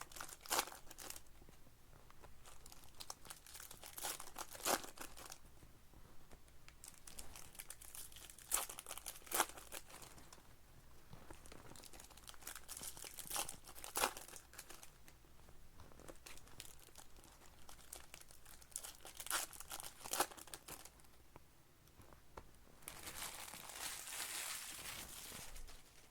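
Baseball card pack wrappers crinkling and tearing as packs are ripped open and handled. Scattered sharp crackles, with a longer stretch of rustling near the end.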